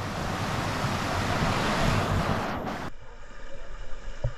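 A steady rushing noise of wind and falling water, which cuts off abruptly about three seconds in. It gives way to the quieter, muffled sound of an underwater camera, with one dull thump near the end.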